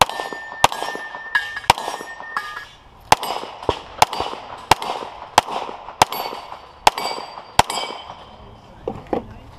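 Rapid pistol fire from a SIG P320 X5: about a dozen shots, roughly one every half to one second, stopping about three-quarters of the way through. Several shots are followed by a brief metallic ring from steel targets being hit.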